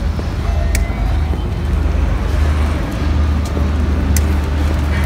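Steady low rumble of wind buffeting the microphone, with a few faint sharp clicks.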